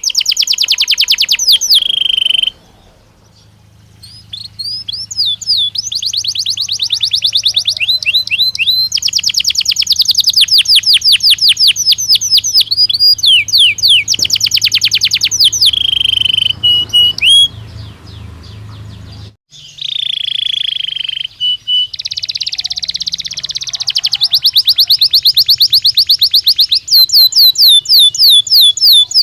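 Belgian canary singing in fast trills of rapidly repeated notes, mixed with some held notes, with two short pauses in the song.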